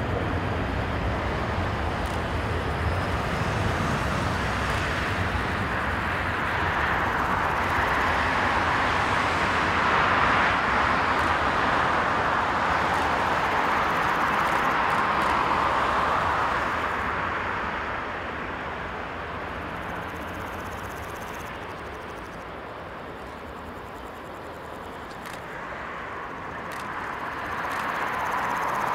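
Airbus A330-343X's two Rolls-Royce Trent 700 turbofans at take-off thrust during the take-off roll: a steady jet roar. It is loudest in the first half, fades as the aircraft rolls away, and swells again near the end.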